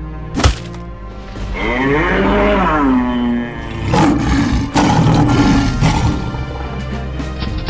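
Lion roar sound effect over background music: a sharp hit about half a second in, a drawn-out animal call that rises and falls, then a loud sustained roar in the second half.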